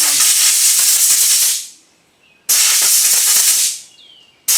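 Compressed air from an air hose blow gun hissing in short blasts, blowing dirt out of a lawn mower air filter. There are two blasts of about a second and a half each, and a third starts near the end.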